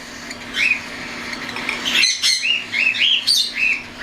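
Young cockatiels near weaning squawking: a series of short, arched calls, the first about half a second in and then many in quick succession through the second half.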